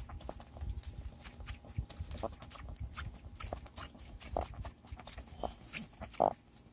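Baby goat sucking on a pacifier: a steady run of small wet clicks and smacks with a few brief squeaks, the loudest near the end, over a low rumble of wind on the microphone.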